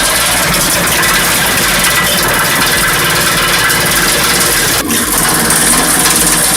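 Wood chipper running with a steady engine note, with a brief break about five seconds in.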